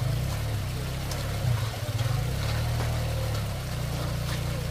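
A steady low rumble, with water trickling and a few faint knocks from the crowd scrambling on the slope.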